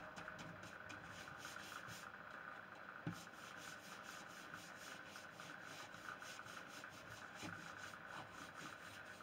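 Faint, quick rhythmic strokes of a hand rubbing Briwax into a stripped pine door panel, with one light knock about three seconds in.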